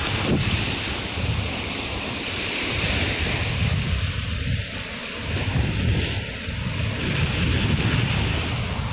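Small waves washing up and running back on a sandy shore, a steady rushing wash, with wind buffeting the microphone in low gusty rumbles.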